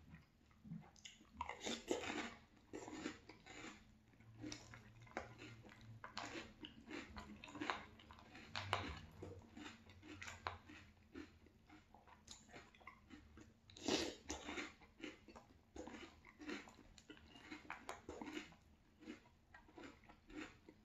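Close-up chewing of crunchy French Toast Crunch cereal in milk: irregular crisp crunches from mouthfuls, the loudest about two seconds in and again near fourteen seconds.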